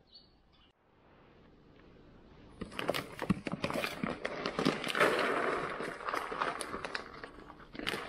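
Dry dog kibble poured from a plastic bag onto a sheet of cardboard: a dense rattling patter of pellets with the bag rustling. It starts about two and a half seconds in.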